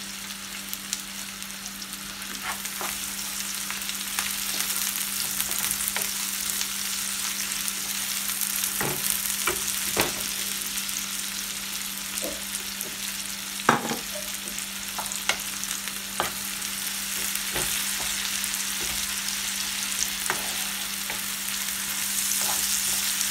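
Sliced onions, whole garlic and green chillies sizzling in mustard oil in a frying pan, a steady hiss that grows a little louder. A few knocks as the wooden spatula stirs and strikes the pan.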